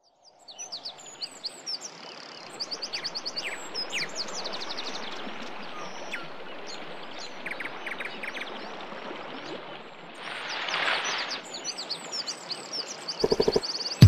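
Countryside ambience of many small birds chirping and trilling over a steady background hiss, with a brief swell of rushing noise about ten seconds in. Deep, regular musical beats start near the end.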